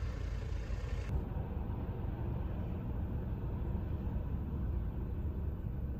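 Steady low rumble of outdoor vehicle traffic, with no distinct events; the hiss above it changes abruptly about a second in.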